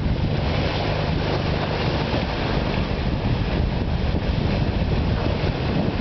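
Steady wind noise on the microphone over the rush of open-ocean water along a moving ship's bow.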